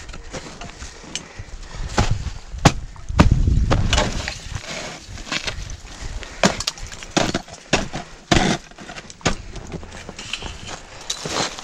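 Ice axe striking and breaking into rime ice: a string of irregular sharp crunching, splintering hits. A low rumble about three to four seconds in.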